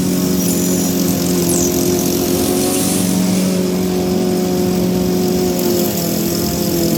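Toro SmartStow self-propelled gas lawn mower engine running steadily while mowing, a constant hum that wavers briefly in pitch near the end.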